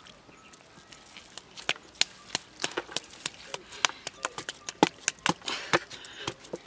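Irregular sharp knocks and slaps as hands dig and scrape wet mud and clods of soil around a plastic pipe. They are few at first and come several times a second from about two seconds in.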